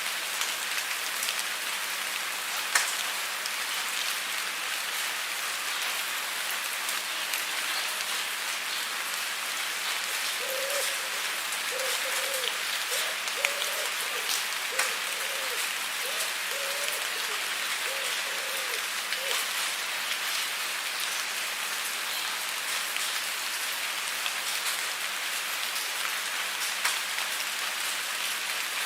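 Steady rain falling on a surface, an even hiss with scattered sharper drops. Between about ten and nineteen seconds in, a faint short wavering call repeats roughly once a second under the rain.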